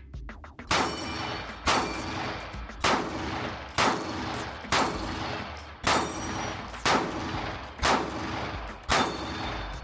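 Nine shots from a Canik TP9 Elite SC 9mm compact pistol, fired at a steady pace of about one a second, each followed by a short echoing tail.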